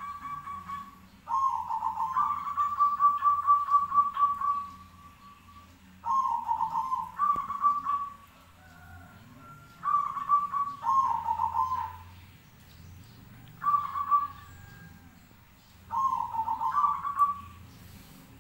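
Caged zebra doves (perkutut) answering each other with rapid, pulsing coos. The calls come in repeated bursts a few seconds apart.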